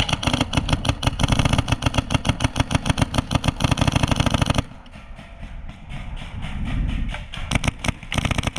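Airsoft electric gun firing full-auto: a rapid, even rattle of shots for about four and a half seconds that stops suddenly, then more quick shots near the end.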